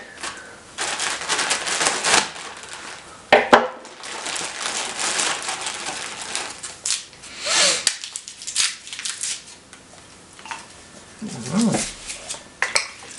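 Plastic candy bag and wrapped taffy candies crinkling and rustling as pieces are handled and a wrapper is pulled open by hand, with a sharp crackle about three and a half seconds in.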